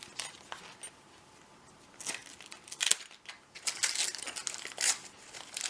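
Paper wrapping and packaging crinkling and rustling as a padlock is unwrapped by hand, in irregular crackly bursts that start about two seconds in after a quiet spell.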